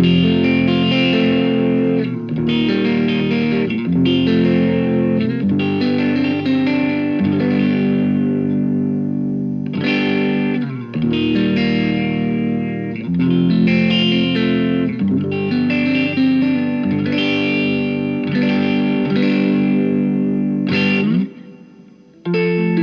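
Electric guitar played through a Vox AC15C1 valve amp with the tone cut knob fully open and the master on full, pushed by a Nobels overdrive pedal at very low gain for a slightly broken-up clean tone. Chords are strummed and left to ring, with a short pause about a second before the end.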